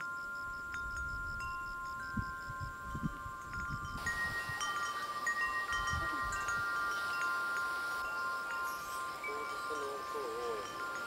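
Chimes ringing: a few long held tones with scattered bright pings that decay, the pings growing busier about four seconds in.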